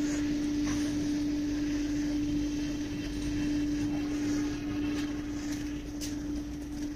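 Small electric blower fan on a metal cylinder stove running with a steady hum, forcing air into the fire. A couple of light clicks near the end.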